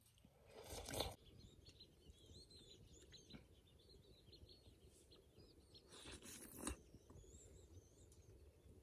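Faint small birds chirping in quick, high calls, interrupted by two short rushing sounds about a second in and near six seconds in, the first the loudest.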